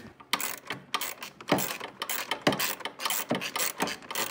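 Ratchet wrench clicking in short, irregular bursts as it tightens the bolts of a snowmobile's recoil starter housing.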